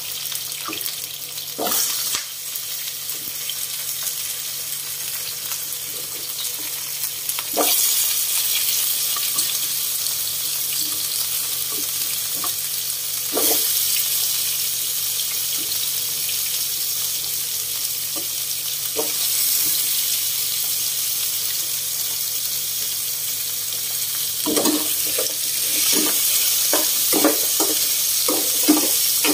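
Coconut pieces, garlic and green chillies sizzling in hot oil in a non-stick frying pan, the sizzle swelling about eight seconds in and again five seconds later. Near the end a spatula scrapes and knocks against the pan as the pieces are stirred.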